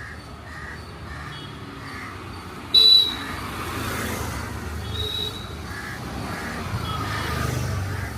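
Crows cawing repeatedly over a steady rumble of street traffic, with a sudden loud, high-pitched sound about three seconds in.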